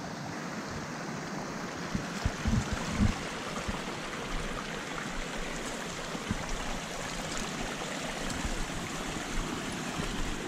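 Rain-swollen forest creek rushing and splashing over rocks in a steady stream of water, with a few low thumps about two to three seconds in.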